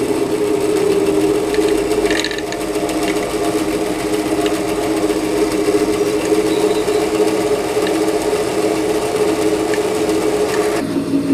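Jet 14-inch bandsaw, converted to a treadmill DC motor on a speed controller, running at a steady speed: an even motor hum with the blade and wheels turning. Near the end the hum shifts suddenly to a lower pitch.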